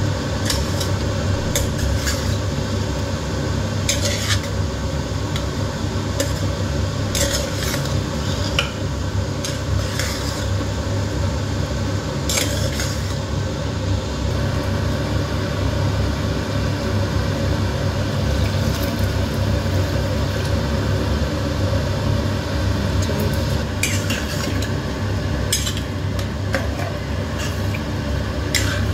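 A metal ladle stirring rice in a pressure-cooker pot: soft scraping and turning, with sharp clinks of metal on metal every few seconds, over a steady low hum.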